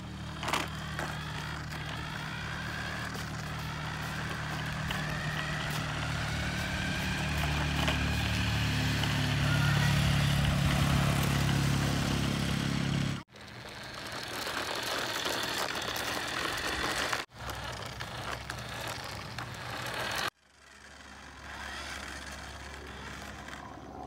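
Remote-control toy semi truck running on concrete: a small electric motor whines, its pitch slowly rising and falling, over a steady low hum. The sound cuts off suddenly three times.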